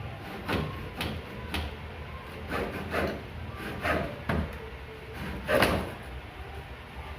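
Short, irregular scraping strokes on wood as a broken wooden school cabinet is taken apart, about eight in all, the loudest near the end.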